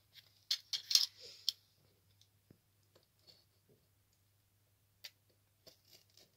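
Handling of a cardboard box and a snap-off utility knife: a quick cluster of sharp clicks about half a second to a second and a half in, then only a few faint ticks and scrapes as the blade is set against the box.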